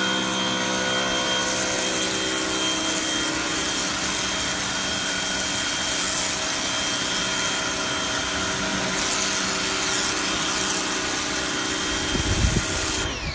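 Realm BY01-HBE 1500 PSI electric pressure washer running, its motor and pump humming steadily under the hiss of the water jet striking concrete. Near the end the motor shuts off and winds down with a falling whine.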